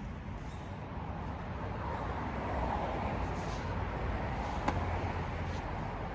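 Road traffic noise: a vehicle passing by, swelling and fading over a few seconds, with one sharp click about two-thirds of the way through.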